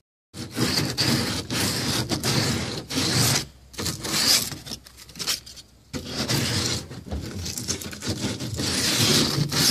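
80-grit sandpaper rubbed by hand around the cut edge of a round hatch hole in a plastic kayak deck, in quick scratchy strokes with a couple of short pauses, smoothing off the leftover shavings from cutting the hole.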